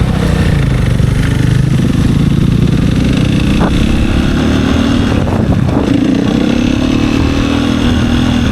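Husqvarna single-cylinder four-stroke motorcycle engine running. Its pitch sits low at first, then climbs higher a little past halfway as it is revved.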